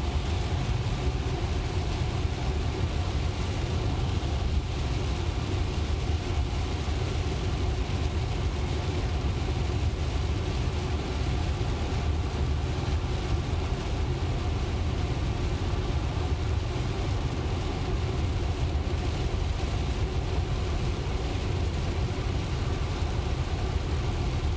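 Steady road noise heard inside a dual-motor Tesla's cabin at highway speed in heavy rain: a low rumble of tyres on wet pavement with the hiss of rain and spray on the car, unchanging throughout.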